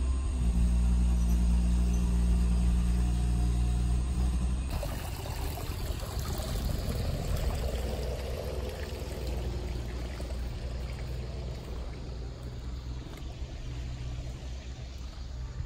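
A steady low mechanical hum like an idling engine for the first few seconds. After a cut, shallow water runs and trickles over gravel and stones along a concrete wall, slowly fading.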